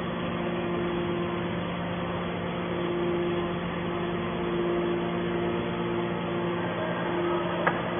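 Hydraulic metal scrap baler's power unit running with a steady hum, a higher tone fading in and out over it, and a single short click near the end.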